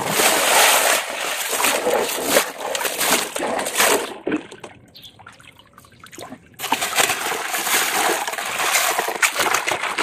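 Water splashing and sloshing as plastic toy trucks are washed by hand in shallow muddy water. It comes in two spells, with a quieter lull of about two seconds in the middle.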